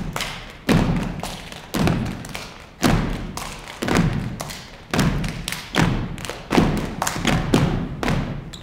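Step dance troupe stepping in unison: feet stomping on a wooden stage floor along with body percussion, a heavy hit about once a second with lighter ones between, each echoing in the hall.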